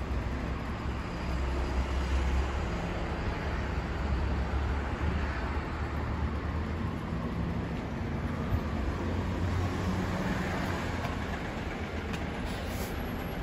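Road traffic on the street outside: a steady low rumble of passing vehicles that swells and fades.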